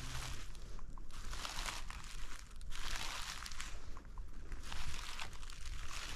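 Footsteps crunching through dry leaves and brush, about one step a second.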